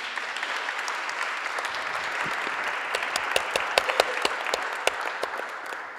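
Audience applauding: steady dense clapping with a few sharper individual claps standing out, dying away near the end.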